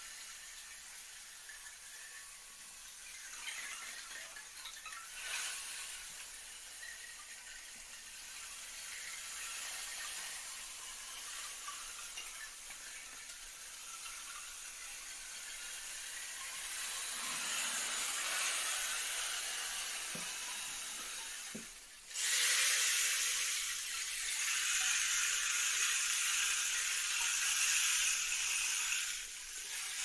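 Wooden 'stream and water' percussion shaker being tilted, its filling running across the inside in a continuous hiss that imitates a babbling stream. The hiss swells and fades, then breaks off briefly and comes back louder and brighter about two-thirds of the way through.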